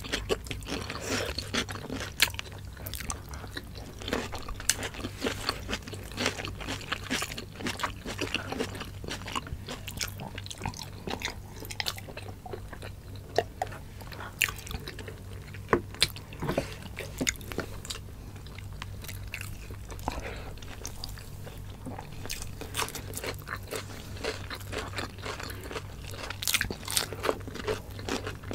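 Close-miked chewing with frequent crunches and sharp clicks, from two people eating chicken liver and gizzard adobo with cucumber and tomato salad, over a faint steady low hum.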